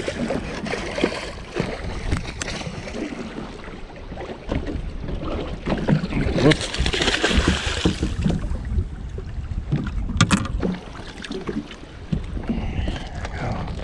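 Hooked northern pike thrashing and splashing at the water's surface beside a boat, with a longer burst of splashing about six and a half seconds in. Wind rumbles on the microphone throughout.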